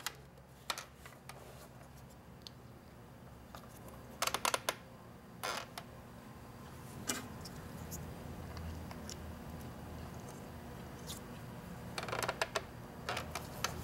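Light clicks and taps of a plastic GM instrument cluster being handled while its gauge needles are pressed back onto the stepper motor shafts, coming singly and in short clusters, with a small flurry near the end, over a low steady hum.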